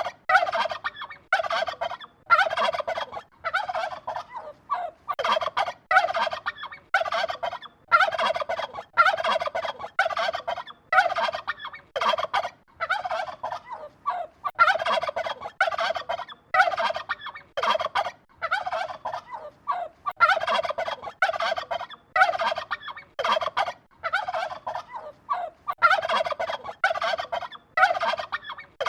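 Domestic turkeys gobbling: a steady run of short, rapid, rattling gobbles, one after another, about one or two a second.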